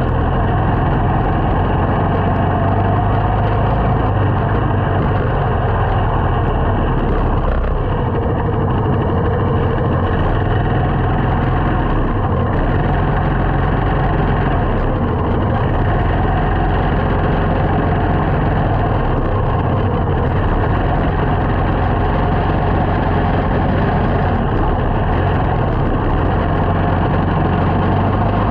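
Small motorcycle's engine running steadily while riding.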